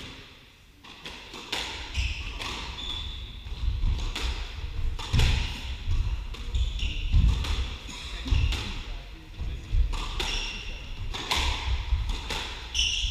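Squash rally: the ball cracks off rackets and the court walls, with shoes squeaking and feet thudding on the wooden court floor. Play picks up about a second in.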